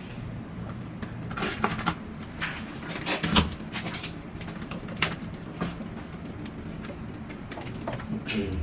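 Scattered clicks and knocks of plastic PPR pipe fittings and a socket-fusion heating tool being handled against a shower valve, over a low steady background hum.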